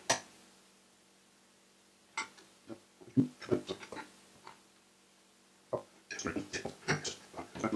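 Small clicks and knocks of hand tools being picked up, handled and set down on a cloth-covered bench: a soldering iron taken from its stand and a flux syringe. A sharp click at the start, then short irregular clusters of handling noise about two seconds in and again near the end.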